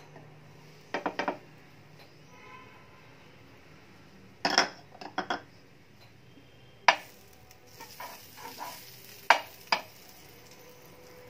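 Clicks and taps of a plastic spatula and bread against a non-stick frying pan, in several short clusters, the sharpest two single knocks in the second half. Under them a light sizzle of butter frying in the pan, growing brighter about halfway through.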